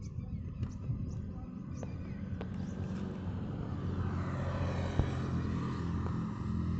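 Background vehicle noise: a steady low hum, with a rushing sound that swells over the second half.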